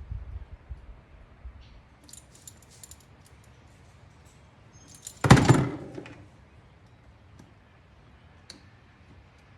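Small metal parts and tools being handled, clinking and jangling lightly, with one loud clunk about five seconds in.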